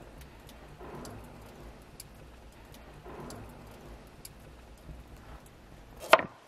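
Quiet outdoor ambience with a low rumble and a few faint ticks, then about six seconds in a single sharp knock of a chef's knife cutting through a carrot onto a wooden cutting board.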